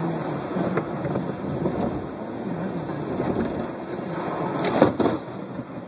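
Rain and wet-road noise heard from inside a moving car, with a steady low rumble and a short loud hit about five seconds in.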